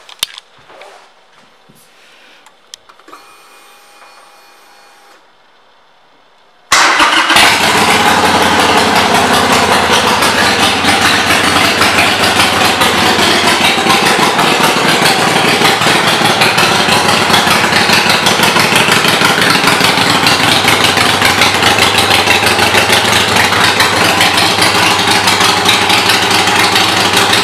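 Harley-Davidson Sportster 883's air-cooled V-twin starts abruptly about seven seconds in after a few faint clicks and a short hum. It then idles loudly and steadily through Vance & Hines aftermarket exhaust pipes.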